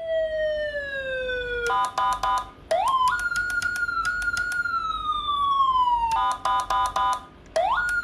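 CJB 200-E electronic siren module sounding through its speaker while its tones are switched: a slowly falling wail, a short pulsing burst of several tones at once about two seconds in, then a quick rise to a held high tone that slides slowly down, another pulsing burst about six seconds in, and a fresh quick rise near the end.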